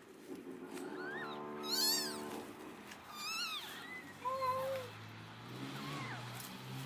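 Newborn kittens mewing: several short, high, thin cries, the two loudest about two and three and a half seconds in.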